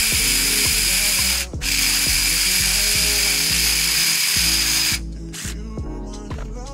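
Power drill running, boring a hole in metal angle stock: a high whine over a harsh hiss, in two runs with a short stop about a second and a half in, cutting off about five seconds in. Background hip-hop music with a steady beat plays underneath.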